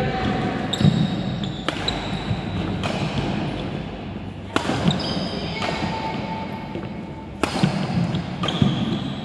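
Badminton doubles rally: sharp racket-on-shuttlecock hits every one to three seconds, with short squeaks of shoes on the wooden court floor between them.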